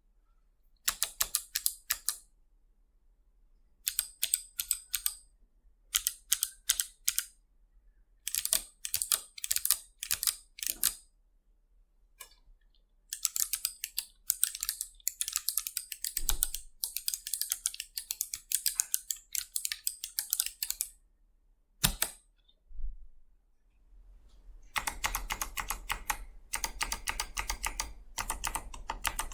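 Typing on a Keychron K8 Pro mechanical keyboard fitted with Kailh Jellyfish Box switches. Short bursts of keystrokes come first, then a long run of steady typing, two lone key presses, and dense typing near the end.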